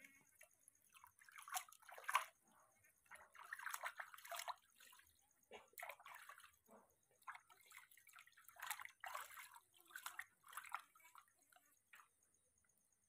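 Faint, irregular splashing and trickling of water in a plastic wash basin as a hand scoops and pours water over a baby monkey being bathed, in short bursts about a second long that die away near the end.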